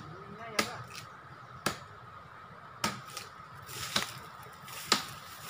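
Bolo knife chopping into a tree trunk, five sharp strokes about a second apart, hacking open the tree to reach a wild bees' nest for honey.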